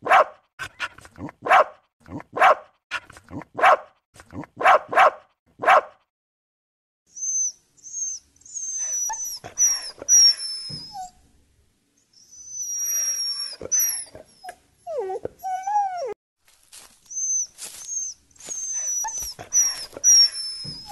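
A dog barking, a run of short barks about one a second for the first six seconds, then after a pause high, thin whining and whimpering in three spells, the whines sliding down in pitch, with a few lower whining yelps in the middle spell.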